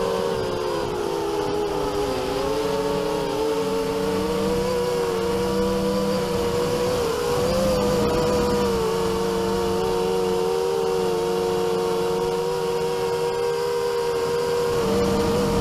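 A drone's electric motors and propellers buzzing steadily, heard from its onboard camera, with several whining tones that drift up and down as the motor speeds change in flight.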